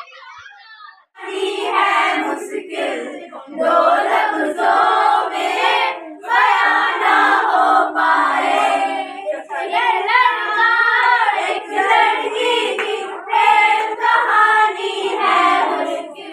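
A group of young women singing together in chorus. They start about a second in, with short breaks between lines.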